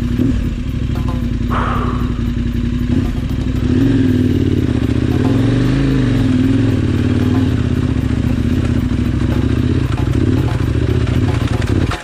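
Big twin-cylinder adventure motorcycle engine running, steady at first, then pulling harder from about four seconds in, with the revs rising and falling under throttle as the rider works the bike free with a helper.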